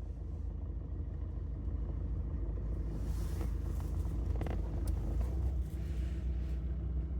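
Lada Granta engine idling with a steady low rumble and a few light clicks about three to four and a half seconds in. The owner is chasing a knock or rattle from the gearbox or the clutch release bearing.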